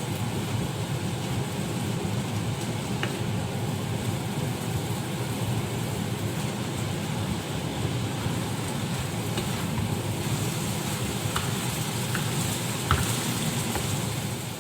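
Vegetable filling cooking and being stirred in a pan: a steady low rumble and hiss, with a few light clicks of the utensil against the pan.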